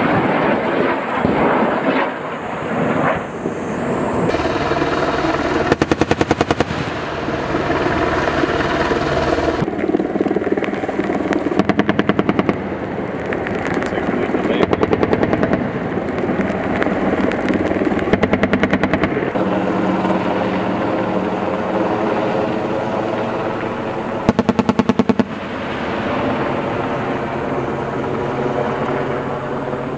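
AH-64E Apache helicopter's M230 30 mm chain gun firing several short bursts of about a second each, rapid even shots, over the steady drone of the helicopter's rotors and turbines.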